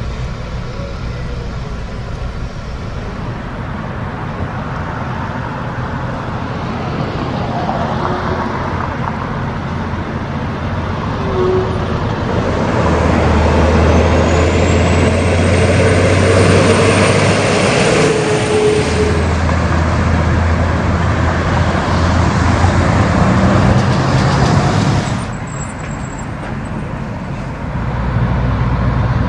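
Road traffic with heavy diesel trucks. From about 13 seconds in, a semi-truck's diesel engine runs loud and close, with a faint high whine, before the sound drops away suddenly near the end.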